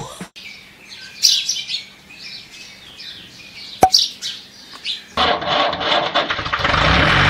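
Birds chirping in short high calls over a quiet background, with one sharp click just before four seconds in. About five seconds in, a loud crowd-like cheering sound starts abruptly and carries on.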